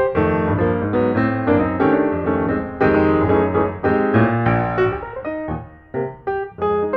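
Background piano music, notes and chords played in quick succession, with a brief softer passage near the end.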